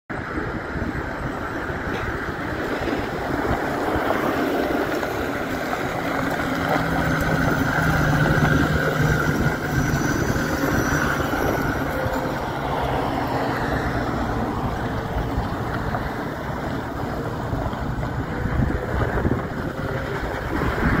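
2008 Ford F-450 service truck driving slowly past, its engine running steadily and loudest as it comes alongside about eight seconds in.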